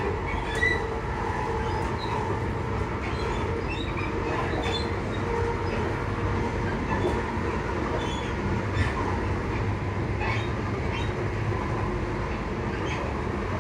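Class 334 electric multiple unit running at speed, heard from inside the passenger saloon: a steady rumble of wheels on rail with scattered clicks. A faint traction-motor whine fades out about five seconds in.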